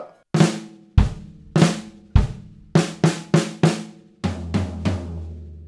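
Acoustic drum kit playing a one-bar break: a flam on the snare on each of the first two beats, each answered by a bass drum kick, then four quick sixteenth-note strokes on the snare. After a one-stroke gap come three strokes on the floor tom, which rings on low at the end.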